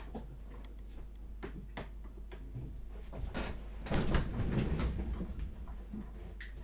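Small clicks and knocks of objects being handled, with a longer clatter about four seconds in and a sharp click near the end.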